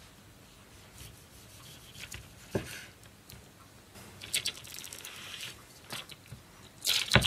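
A large fixed-blade knife (Eickhorn German Expedition Knife) slicing a tomato on a wooden cutting board: soft cutting strokes and light taps of the blade on the board, with a louder sharp knock near the end.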